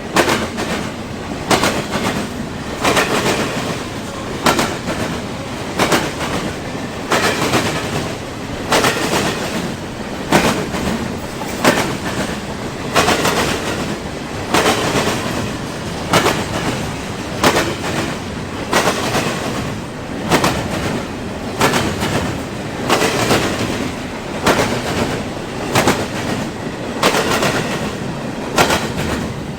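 Freight train cars rolling past, their wheels clacking over rail joints in a steady rhythm, about one clack group every second and a half, over a continuous rumble.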